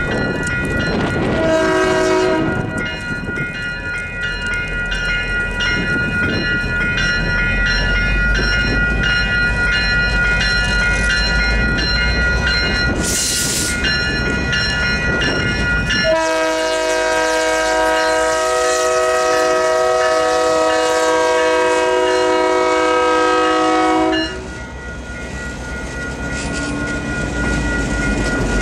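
Diesel freight locomotives passing a grade crossing: the lead unit's air horn gives a short blast about a second and a half in, then a long blast of about eight seconds past the middle, over the rumble of the engines and wheels and a steadily ringing crossing bell.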